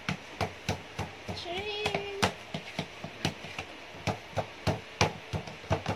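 Hands patting and slapping mashed potato dough flat on a plastic sheet, an irregular run of soft slaps a few times a second. A short vocal sound comes in about one and a half seconds in.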